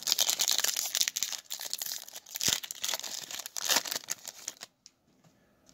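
Foil wrapper of a Panini Select football card pack being torn open and crinkled in the hands, a dense crackle that stops about a second before the end.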